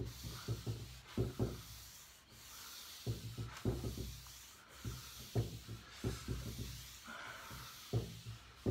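A pad of fine 0000-grade steel wool rubbed back and forth over a wooden tabletop, working paste wax into the wood. The strokes come in quick, uneven runs, each with a scratchy hiss and a low knock of the hand on the table.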